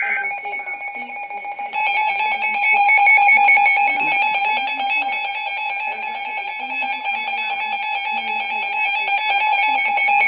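Emergency Alert System attention signal: a steady two-tone alarm sounding without a break. From about two seconds in, a second layer of rapidly stepping, warbling higher tones joins it and the alarm gets louder.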